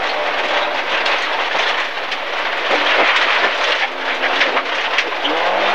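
Inside an MG ZR 1.4 rally car at speed on a wet stage: a dense rush of tyre and road noise, peppered with sharp ticks of stones and grit striking the underbody. The engine's note is faint beneath and rises near the end.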